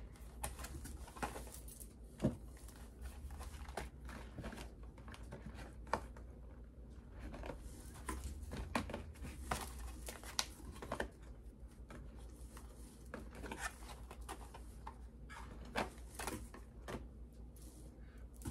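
Scattered light taps, clicks and rustles of small cardboard boxes and plastic packaging being handled, shuffled and set down, over a low steady hum.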